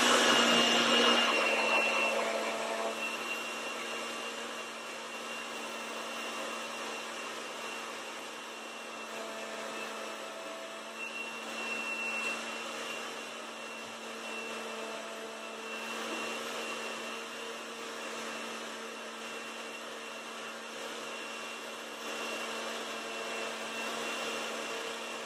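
Countertop blender running steadily as it whips eggs, oil and lemon into homemade mayonnaise. It is loudest at first, drops a little about two seconds in, then keeps up an even hum with a high whine on top.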